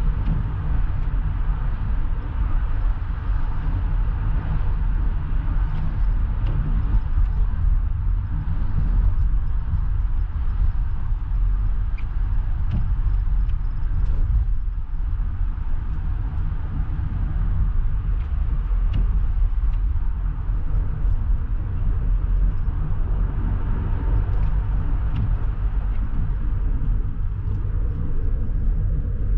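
Steady low rumble of a car driving on a city street, engine and tyre noise heard from inside the cabin, with a few faint ticks.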